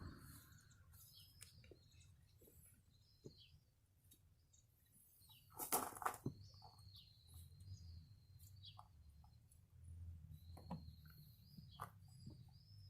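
Near silence: faint birds chirping now and then over a low steady hum, with a short clatter about six seconds in.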